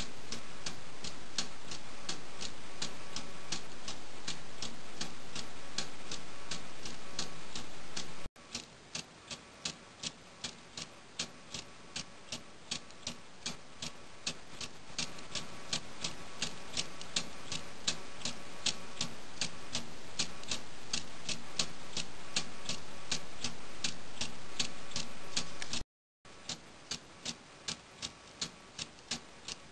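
Meccano balance-wheel clock movement ticking evenly, about two ticks a second, as its spring-loaded balance wheel swings back and forth. The sound drops out briefly twice.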